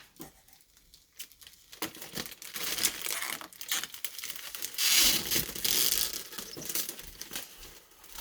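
Close-up crinkling and tearing of plastic wrapping being handled, irregular and scratchy; it starts about two seconds in and is loudest about five seconds in.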